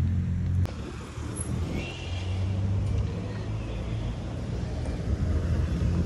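Steady low rumble of motor vehicle traffic, with a single click about two-thirds of a second in.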